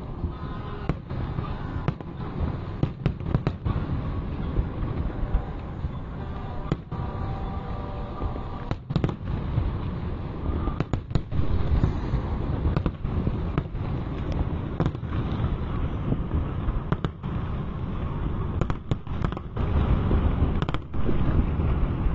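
Aerial fireworks display: shell bursts going off one after another as irregular sharp bangs over a continuous low rumble, with tight clusters of bangs about halfway through and again near the end.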